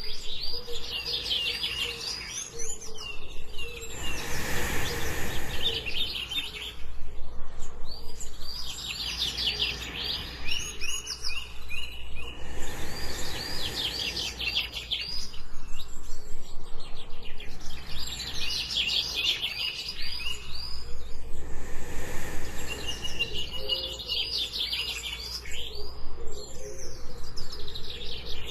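Mixed jungle ambience: a bird sings short phrases of rapid, high chirps every few seconds over a steady low river rush. Three slow, soft breaths, evenly spaced, come in about every eight or nine seconds.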